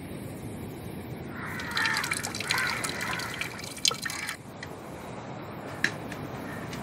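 Coconut milk splashing and dripping into a clay pot as grated coconut is squeezed by hand, for about three seconds. A sharp click comes near the end of the splashing and another about two seconds later.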